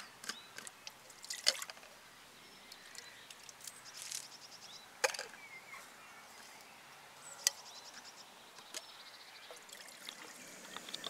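Metal camping cookware clinking as a pot and its lid are handled, with a few sharp clinks. Near the end, water is poured from a bottle into the pot.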